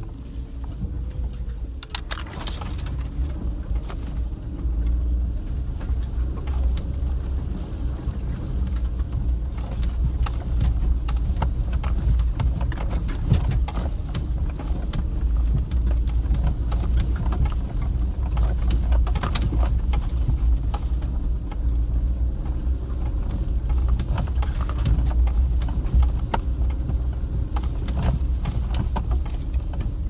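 Vehicle running along a rough dirt forest track: a steady low engine rumble with constant irregular rattling and knocking from the bumps.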